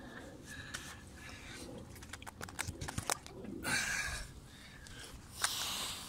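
A phone being handled right against its microphone: a quick run of clicks and knocks about halfway through, then rustling as it is picked up and rubbed against clothing near the end.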